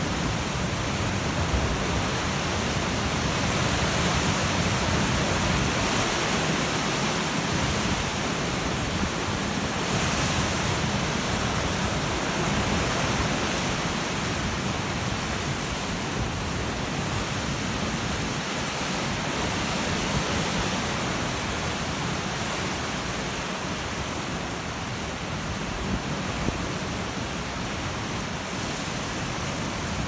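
Ocean surf churning and breaking against rocky ledges and cliffs: a steady rushing of foaming water that eases slightly toward the end.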